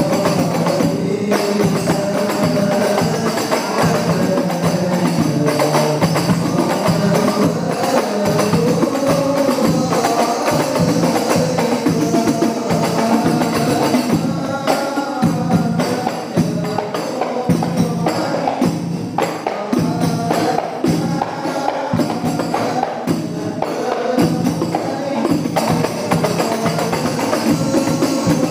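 Sholawat sung by a group of voices, with hand percussion keeping a quick, steady beat underneath.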